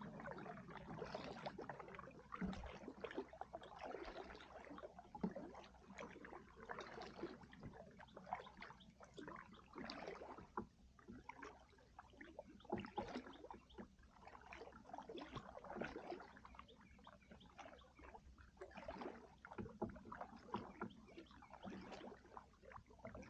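Double-bladed kayak paddle stroking through calm water: faint, irregular swishes, small splashes and drips as the blades dip in and lift out.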